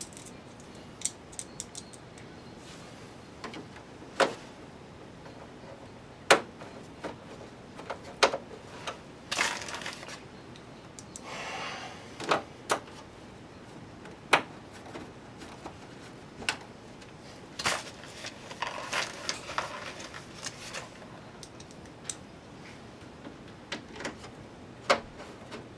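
Screws being set by hand screwdriver into a TV's plastic back panels: about twenty sharp clicks and taps of metal on plastic at uneven intervals, with brief scraping and rustling around ten seconds in and again near twenty seconds.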